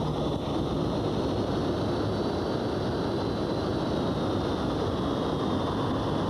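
SR-71 Blackbird's Pratt & Whitney J58 jet engines running as it taxis: a steady rush of jet noise with a thin high whine that falls slightly in pitch toward the end.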